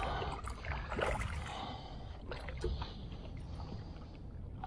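Small waves lapping and washing over rocks at the water's edge, with wind rumbling on the microphone and a few light ticks.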